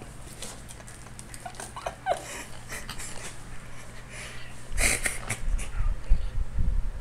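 A toddler's brief squeaky vocal sounds and breathing, then rustling and low thumps from about five seconds in.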